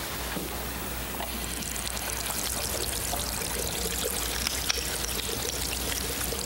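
Running water, a steady pouring or trickling sound that grows stronger about a second and a half in.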